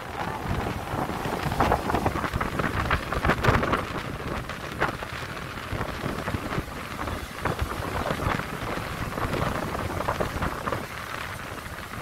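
Small surf waves washing up onto a sandy beach, the foam fizzing and crackling as the water spreads and drains back, with wind noise on the microphone underneath.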